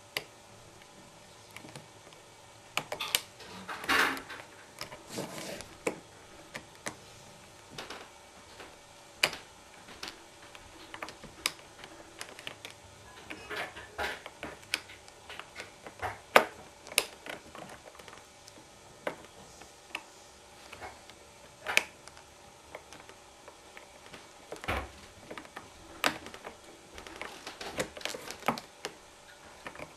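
Irregular small metallic clicks, taps and scrapes of a paperclip and wire pick working inside the lock of East German police handcuffs to release the double lock, with a few sharper clicks and one dull knock.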